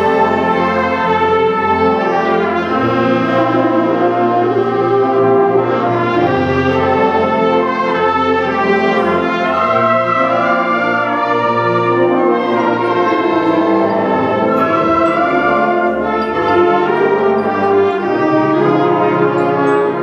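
High school concert band playing, with brass to the fore in held chords over moving lines.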